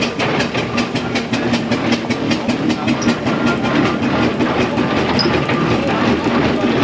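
Steam traction engine running, its engine beating in a quick, even rhythm of about five or six beats a second.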